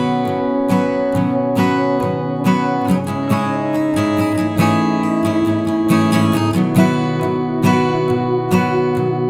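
Instrumental music: acoustic guitar strummed and picked in a steady rhythm.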